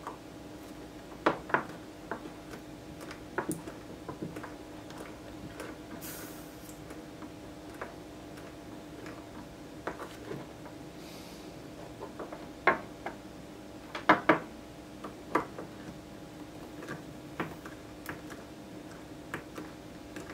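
Scattered small clicks and taps as an 18650 lithium-ion cell is handled and worked at its terminal end by hand against a wooden bench, loudest in a quick cluster about two-thirds of the way through.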